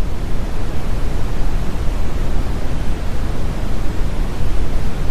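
Loud, steady static-like noise, heaviest in the bass, with no tones or rhythm.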